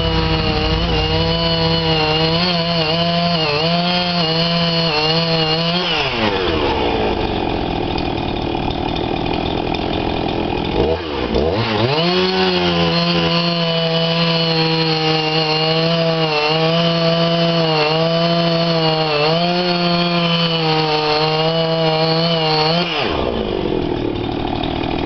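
Husqvarna chainsaw cutting through a log at full throttle, its pitch wavering under load, then dropping back to idle about six seconds in. It revs up again for a second, longer cut of about eleven seconds before falling back to idle near the end.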